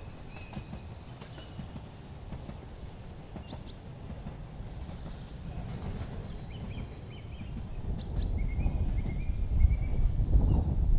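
Narrow-gauge steam train running along its line at a distance, a low rumble that grows louder about eight seconds in, with birds chirping repeatedly.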